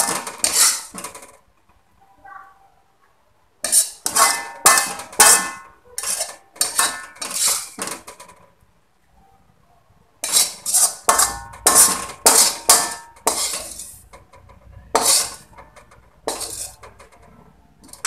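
Metal spatula scraping and knocking against a metal wok in several bursts of quick strokes, with a metallic ring, as cooked stir-fried vegetables are scooped out of the pan. Short pauses fall between the bursts.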